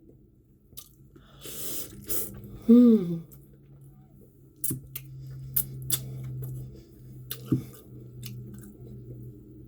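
A man chewing a mouthful of food, with wet mouth clicks throughout, a breath about one and a half seconds in, and a low closed-mouth "mm" hum of enjoyment held for several seconds from about three seconds in.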